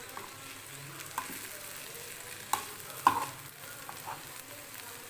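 Steel spatula stirring and scraping cluster beans and peanut powder around a frying pan over a low, steady sizzle, with a few sharp clinks of the spatula on the pan, the loudest about three seconds in.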